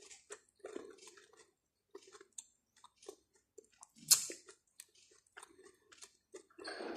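A person chewing a mouthful of boiled corn kernels with the mouth closed: soft, irregular wet chewing with small mouth clicks, and one louder, sharper sound about four seconds in.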